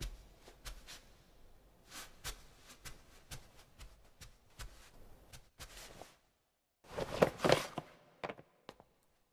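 Soft, slow footsteps on a wooden floor, followed about seven seconds in by a short burst of louder knocks and clatter.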